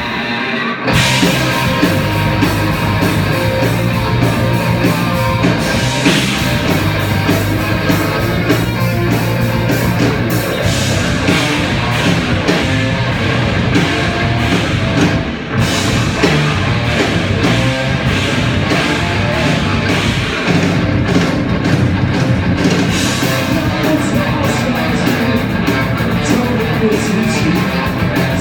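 A rock band playing a song live, with guitars and a drum kit, loud and continuous.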